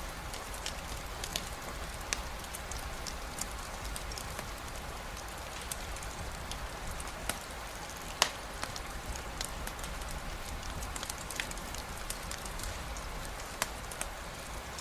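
Steady rain hiss mixed with a campfire crackling, scattered sharp pops, one louder snap about eight seconds in.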